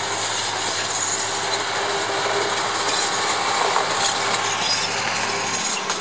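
Bord na Móna narrow-gauge diesel locomotive passing close, its engine running as it hauls loaded peat wagons rolling along the track.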